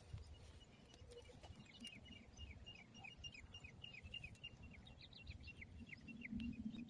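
A bird calling in a long run of short, falling chirps, several a second, faint over a low, uneven rumble.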